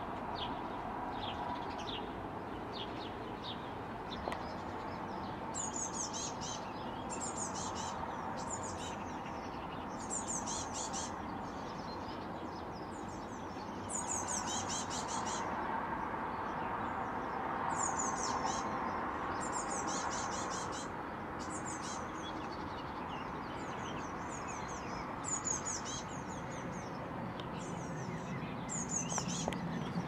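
Small songbirds calling: very high-pitched bursts of rapid notes, repeated about once a second from about five seconds in, with lower calls at the start, over a steady background hum.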